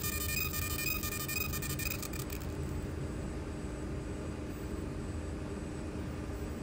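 20 W fiber laser marking machine engraving a small BiTe piece: a high-pitched buzzing whine with fine crackle that stops about two seconds in, leaving the machine's steady low hum.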